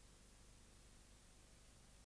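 Near silence: only a faint steady hiss, the noise floor of a silent 8 mm film transfer with no soundtrack.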